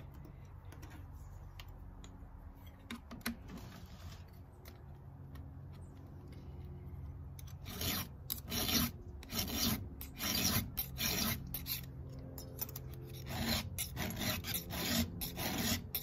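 Hand file rasping across the cutters of a chainsaw chain on its bar, faint at first, then in distinct strokes a little under a second apart through the second half.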